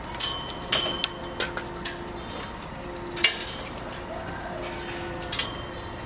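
Irregular sharp metallic clinks and clanks, about seven in all, each ringing briefly, over a steady machine hum.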